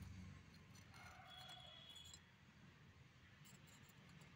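Near silence: a faint low room hum with a few faint clicks.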